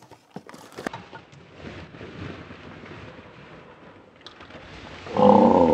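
Cardboard and packing being handled during an unboxing: a few light knocks, then faint rustling. Near the end comes a loud squeaky groan, like foam packing rubbing as the heavy unit is worked out of the box.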